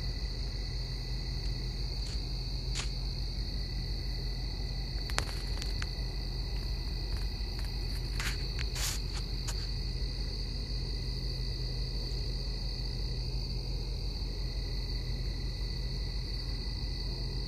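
Crickets trilling in a continuous high-pitched chorus over a steady low hum, with a few faint clicks near the middle.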